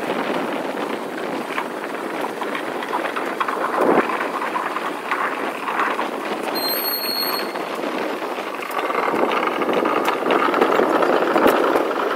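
Passenger train running on the rails: a steady clattering rumble with scattered clicks, growing louder and shriller over the last few seconds.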